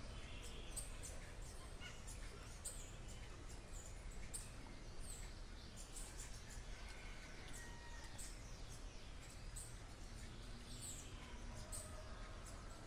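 Faint creek-side night ambience: many short, high-pitched animal chirps scattered throughout, over a low steady rumble.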